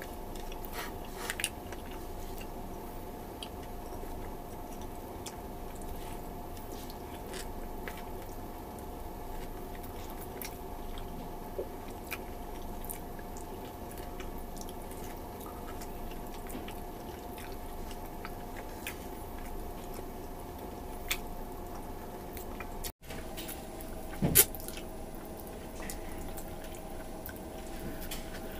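A person chewing sticky, tendon-rich stewed beef off the bone: soft wet chewing and mouth sounds with scattered small clicks over a steady background hum. A single sharper knock stands out about 24 seconds in.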